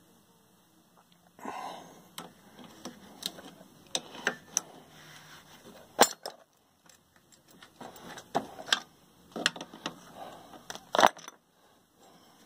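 Irregular metallic clinks and knocks of bolts, nuts and a wrench being handled on a workbench, with a sharper knock about six seconds in.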